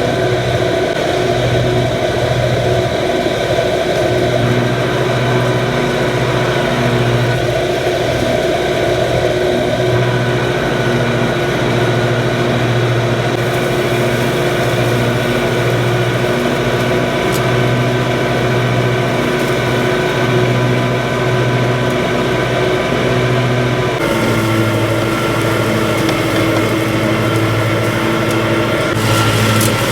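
Lawn mower engine running steadily under load, its note shifting slightly lower about two-thirds of the way through.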